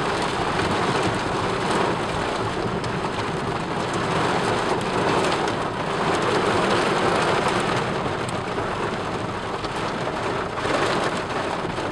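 Torrential rain pelting a car's roof and windscreen, heard from inside the cabin: a steady, loud hiss.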